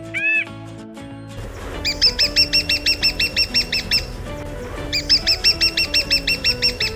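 A bird calling in two rapid runs of repeated high chirps, about six notes a second and each run about two seconds long, over background music.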